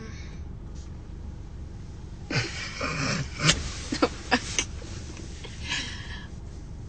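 Steady low rumble of a car cabin picked up by a phone microphone, with a cluster of short breathy or rustling bursts and a few sharp clicks about two to five seconds in, and one more brief burst near the end.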